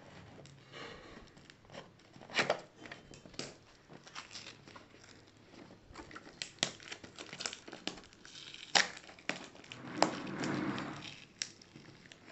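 Packing tape being picked at and peeled off a cardboard mailer box by hand: crinkling of plastic tape and cardboard with scattered sharp clicks, and a longer tearing rustle about ten seconds in.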